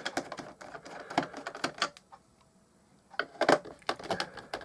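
Irregular clicking and tapping of a screwdriver working at the screws of a plastic clock radio case, with a short pause about two seconds in; some of the screws feel stripped.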